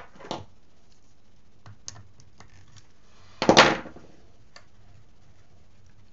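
Small parts and hand tools handled on a wooden workbench while a carbon-fibre quadcopter frame is taken apart: scattered light clicks, with a sharp knock just after the start and a heavier clunk about three and a half seconds in.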